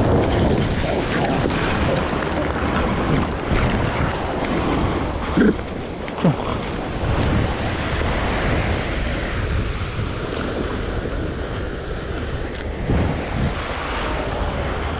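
Wind rumbling on the action camera's microphone over surf breaking on the beach, with two short cries about five and six seconds in.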